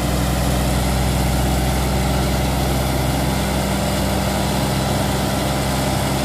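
Engine of a trailer-mounted hydraulic cable puller, a transmission-line stringing machine, running at a steady speed with an even, unchanging hum.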